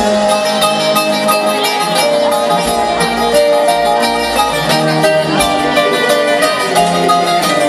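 Live band playing Greek popular music, an instrumental passage with plucked strings to the fore and steady, held notes, recorded on a phone from the audience.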